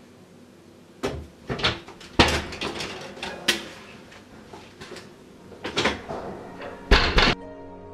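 Irregular knocks and rattles of a door being handled, with a loud cluster of bangs near the end. Soft music fades in just after.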